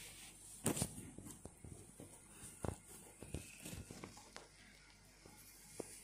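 Handling noise from a phone being picked up out of a cardboard box: a few scattered soft knocks and rustles, the loudest about two-thirds of a second in.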